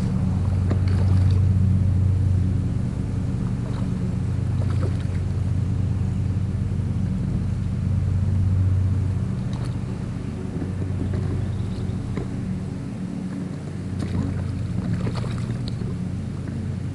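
Stream water running steadily, a continuous low rumble.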